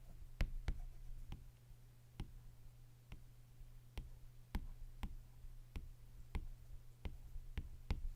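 Irregular light taps and clicks of hard objects being handled, about one or two a second, over a steady low hum.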